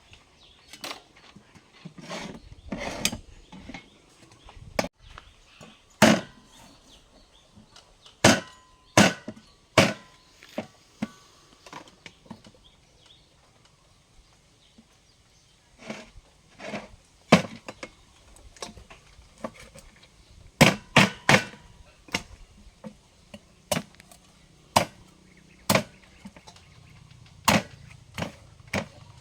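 A blade chopping into wood in irregular strokes, sometimes two or three in quick succession, with pauses between; a few strikes leave a short ringing tone.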